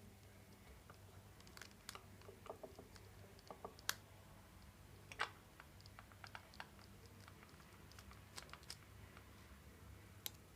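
Faint, irregular clicks and taps of a precision screwdriver bit being fitted and worked against small plastic and metal parts, with the two sharpest clicks about four and five seconds in, over a steady low hum.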